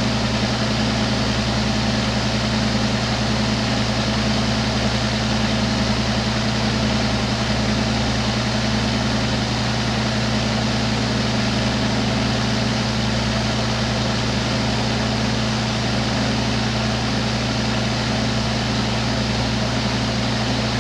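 Steady hiss of a glassworking torch flame over a constant low electrical hum, unchanging throughout.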